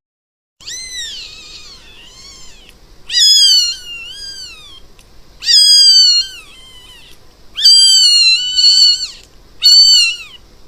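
A kitten meowing five times, about every two seconds: high-pitched calls of about a second each, rising then falling.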